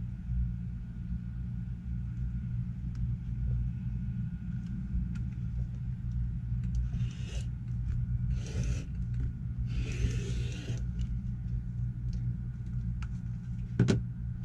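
Rotary cutter rolling through folded cotton fabric along an acrylic ruler on a cutting mat: three short scraping strokes about seven to eleven seconds in, cutting a straight-grain bias strip. A steady low hum runs underneath, and a sharp knock comes near the end.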